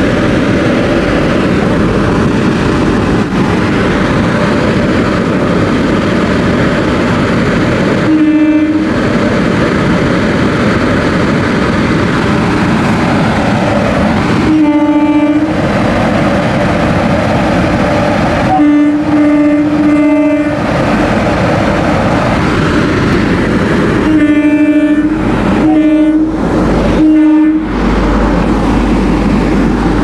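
A train horn sounds about seven times, in short and longer blasts, over a steady loud rush of the automatic coach washing plant's water sprays and the train moving through. A deep rumble grows near the end as the train draws close.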